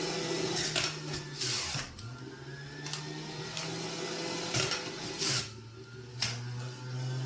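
Stainless-steel centrifugal juicer running with a steady motor hum as produce is pushed down its feed chute, shredding with several short loud grinding bursts. The motor's pitch sags under the load, dropping lower from about five seconds in.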